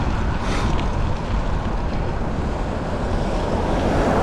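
Steady wind rush over the microphone with the low rumble of a moving ride, and a short hiss about half a second in.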